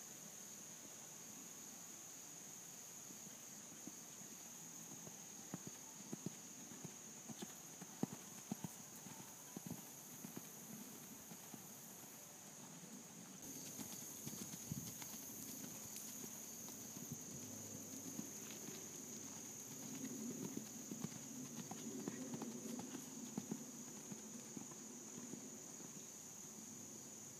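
Faint hoofbeats of a ridden horse trotting on a sand arena: irregular soft thuds and ticks, getting louder after the middle as the horse comes close.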